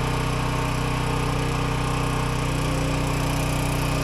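Champion 7000-watt open-frame generator (model 100155) running at a steady, even speed, carrying a light load of two 250-watt bulbs.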